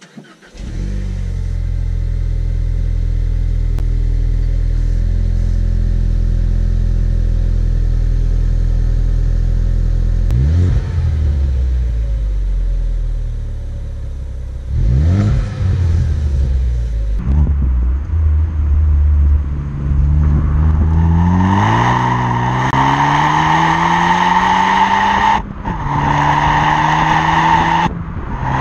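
Ford Focus ST's 2.0-litre turbocharged four-cylinder through a Mountune cat-back exhaust: it starts about half a second in and idles steadily, then is revved in two quick blips. Later the engine pulls up through the revs with a steadily rising pitch, and the sound cuts off suddenly a few seconds before the end.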